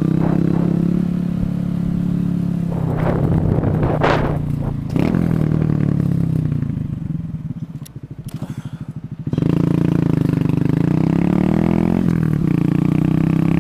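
Honda Grom's 125 cc single-cylinder four-stroke engine running under way. About five seconds in, the revs fall and the engine drops to a low, pulsing idle for a few seconds, then it accelerates away with the pitch rising through the gears.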